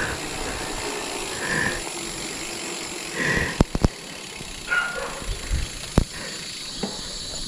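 Dogs barking: about four short barks spaced a second or two apart, with a few sharp clicks in between.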